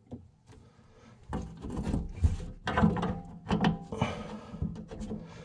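Irregular clicks, knocks and scraping of hands working plumbing parts under a kitchen sink, fitting a faucet supply hose to the cold-water shutoff valve. The handling starts about a second in.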